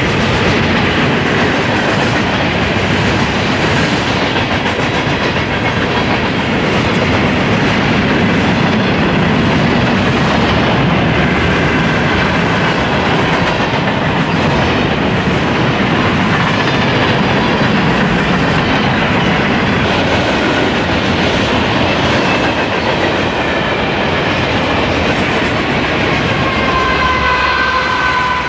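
A long freight train's cars rolling past close by: a steady rumble and rattle of wheels on rail. Thin high squealing tones come in during the last third, falling slightly in pitch.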